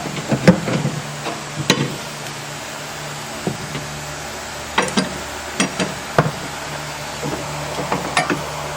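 Irregular knocks and clunks as a strut and coil spring assembly is fiddled into place in the wheel well, in clusters near the start, about five seconds in and near the end, over a steady background hum.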